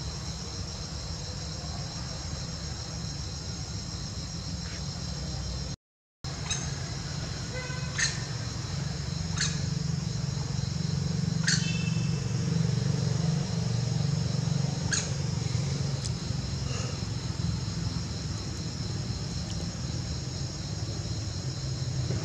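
Steady high-pitched chorus of insects trilling, with a low rumble underneath and a brief dropout about six seconds in. Several short, sharp high chirps come in the second half.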